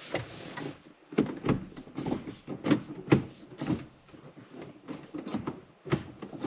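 A run of irregular clunks and clicks, one or two a second, from handling the manual gear shifter and its surrounding trim in a Porsche 997.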